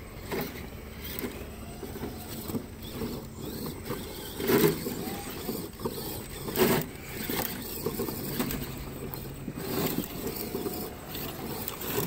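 Radio-controlled rock-crawler trucks whirring as their small electric motors and gears drive them over rocks, with two louder scrapes or knocks about four and a half and six and a half seconds in.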